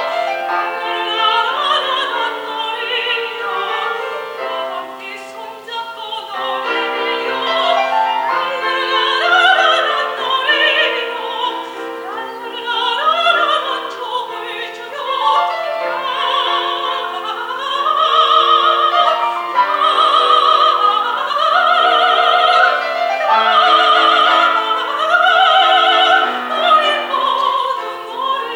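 A soprano singing a Korean art song in operatic style with piano accompaniment, her voice carrying a wide vibrato. In the second half she climbs to a run of long, loud held high notes.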